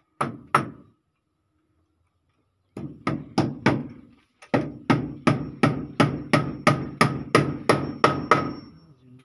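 Hammer blows driving nails into the wooden frame of a door in a bamboo wall: two blows, a pause, a few more, then a steady run of about three blows a second that stops shortly before the end.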